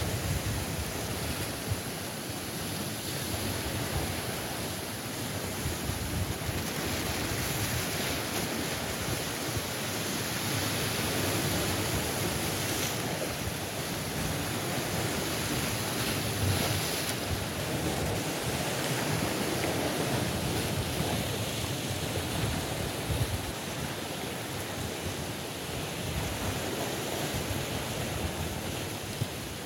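Sea waves breaking and washing over rocks in a narrow coastal gorge: a continuous rushing surf that swells and eases gently.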